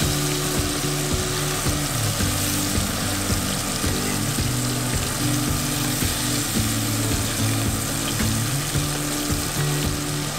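Blackened snapper fillets sizzling steadily as they fry in butter and olive oil in a skillet, with background music underneath.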